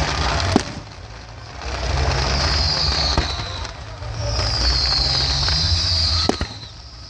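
Fireworks display: two sharp bangs of bursting shells, about half a second in and again near the end. Between them a high hissing crackle swells twice over a steady low rumble.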